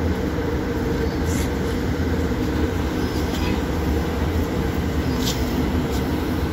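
Steady low rumble of a moving vehicle, with a few brief high clicks.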